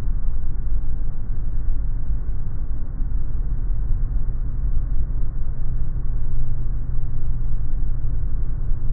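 Steady low rumble of an aircraft rolling along a concrete runway on its twin-wheel nose gear.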